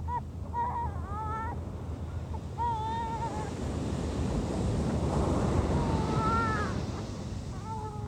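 Ocean surf breaking on a beach, the rush of a wave swelling around the middle and easing near the end. Gulls call again and again over it, short arching calls.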